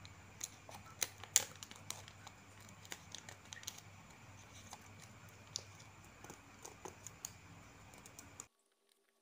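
Light, irregular clicks and taps of fingers handling a smartphone's plastic frame and newly fitted LCD assembly, over faint room noise. The sound cuts off abruptly about eight and a half seconds in.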